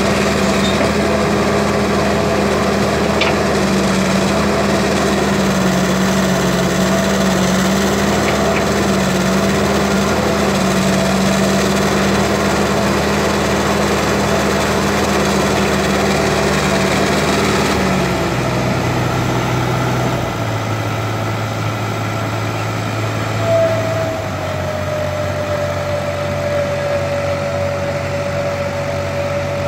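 Heavy diesel machinery engines running steadily. About eighteen seconds in the engine note drops and changes, and from about twenty-three seconds a steady whine rides over it.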